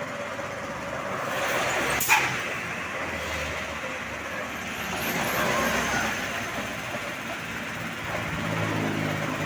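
Road traffic with heavy vehicles such as buses passing: steady engine and tyre noise, a sharp snap about two seconds in, and a heavy engine's low drone building near the end.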